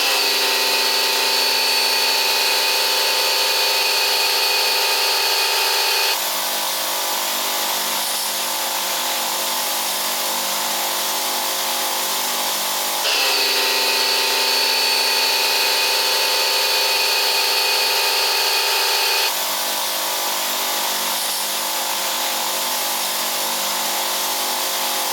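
Bosch Aquatak pressure washer's motor and pump running steadily with a high whine. The sound switches between a louder, higher-pitched state and a softer one about every six to seven seconds.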